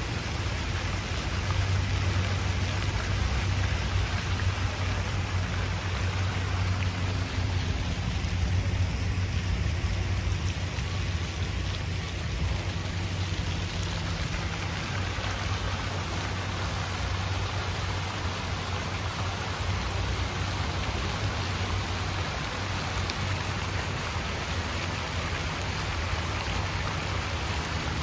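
Jet fountains spraying and splashing into a shallow reflecting pool, a steady watery hiss, over a low steady rumble.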